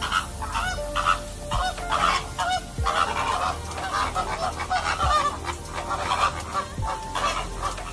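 Many birds calling together, short pitched calls overlapping continuously, with a low thump every second or two underneath.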